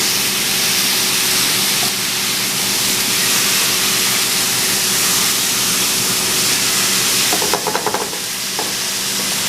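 Chicken breasts searing in a hot frying pan with a light coat of cooking spray: a steady sizzling hiss.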